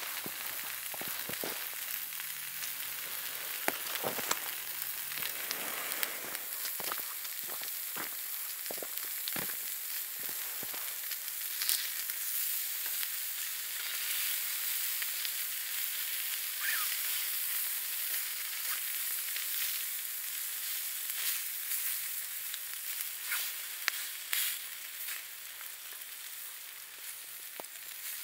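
Bacon and king oyster mushroom slices sizzling steadily in a frying pan, with scattered sharp clicks as metal tongs turn the pieces, most of them in the first third.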